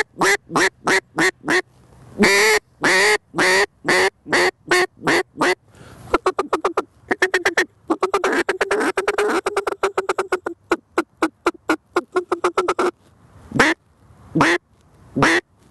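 Lynch Mob Jezebel acrylic duck call blown in a mallard hen routine: two runs of loud quacks, then a fast rattling feed chatter lasting about seven seconds, then a few single quacks near the end.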